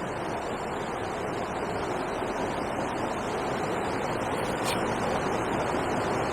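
Steady rushing of water pouring over a river weir, an even noise without breaks that slowly grows a little louder.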